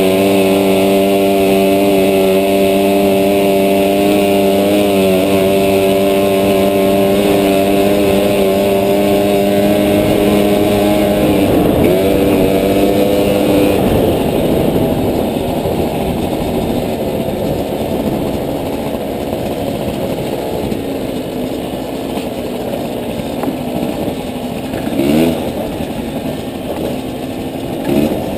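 Small motorbike engine running at a steady, even pitch under way. About 13 seconds in, the note breaks up into a rougher, uneven sound, with a couple of brief revs near the end.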